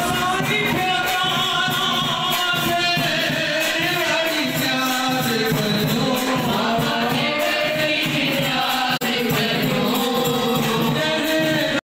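Group of voices singing a devotional aarti hymn over steady rhythmic percussion; it cuts off abruptly near the end.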